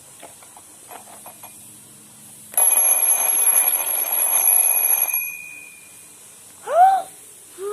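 Alarm clock's alarm ringing loudly for about two and a half seconds, then stopping with a short fading ring-out; it is the alarm going off on test at its set time. Near the end, a brief rising-and-falling voice sound.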